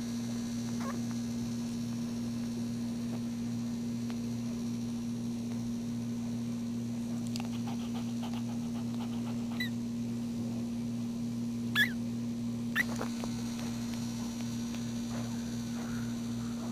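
Newborn puppies nursing at their mother, giving three short, high, rising squeaks about ten to thirteen seconds in, over a steady low electrical hum.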